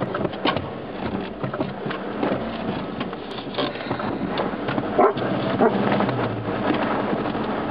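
Off-road 4x4 crawling over a rough gravel track: a steady engine hum under irregular knocks and rattles from the vehicle, with a sharper knock about five seconds in.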